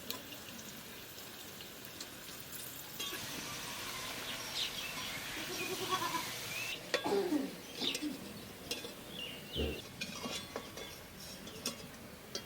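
A goat bleating several times, short downward-gliding calls about seven seconds in. Before them there is a faint hiss of oil frying.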